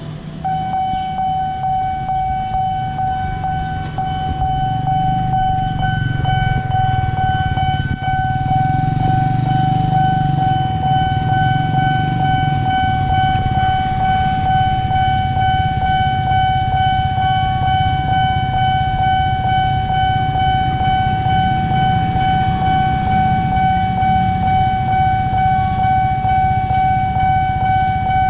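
Railway level-crossing warning alarm sounding a steady high tone with the barrier down, over low traffic rumble that swells for a few seconds in the middle.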